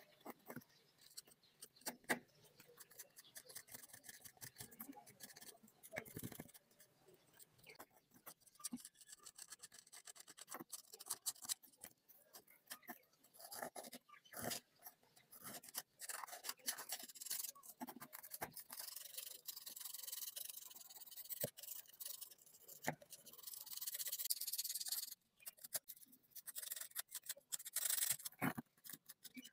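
Small screwdriver tip scraping a crust of rust and grime off a steel scissor blade: irregular scratching with many small ticks and clicks as flakes break away, with a longer run of steady scraping past the middle.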